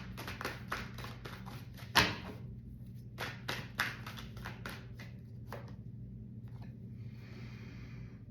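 Tarot cards being shuffled and handled: a run of quick clicks and taps, the loudest about two seconds in, then a soft rustle of cards sliding near the end, over a low steady hum.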